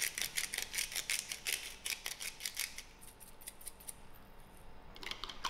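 Hand-twisted salt grinder grinding salt crystals: a rapid run of sharp gritty clicks, several a second. The clicks die away about three seconds in and start again near the end.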